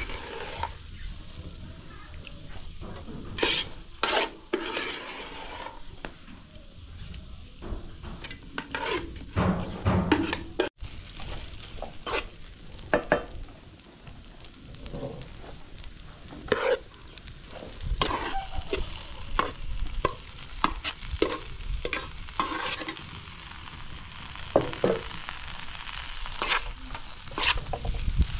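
Metal ladle and slotted skimmer stirring and scraping in cooking pots, with frequent sharp clinks of metal on metal, and diced chicken frying in a wide metal pan. The sizzle grows fuller over the second half.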